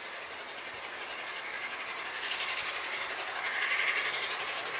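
Steam locomotive hauling a passenger train as it approaches, its exhaust steam and the wheels on the rails growing steadily louder.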